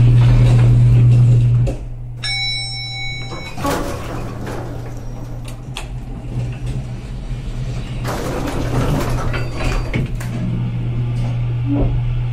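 Lift car in motion: a loud steady low hum, loudest at first, that fades and returns near the end. About two seconds in there is a short electronic beep, and between these come sliding-door and mechanism noises.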